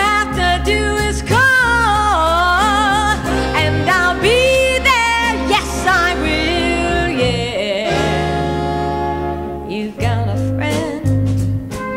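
Live band music: a wavering lead melody over a steady bass line, easing into a long held chord about eight seconds in, then picking up again.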